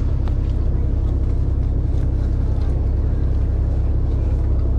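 Engine of a small sightseeing boat running steadily, a deep, even drone heard from on board.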